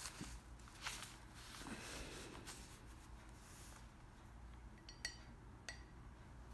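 Faint handling noise as a sheet of painting paper is slid and turned on a table: soft rustles and a few light clicks over a low room hum.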